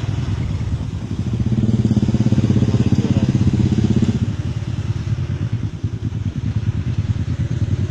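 A small engine running steadily with a fast, even pulse, loud and low.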